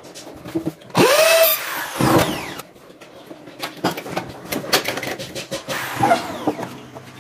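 A handheld power tool spinning up with a sharp rising whine about a second in, then winding down with a falling whine; another short whine comes near the end, among scattered clicks and knocks.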